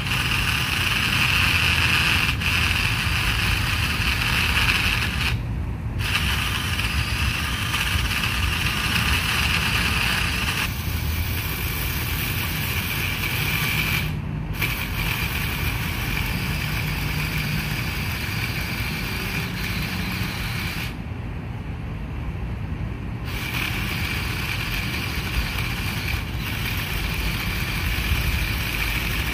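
Cordless drill driving a chainsaw attachment, its motor whining steadily as the chain cuts through a thick fallen tree branch. It stops briefly twice and then for about two seconds near two-thirds of the way through before cutting again.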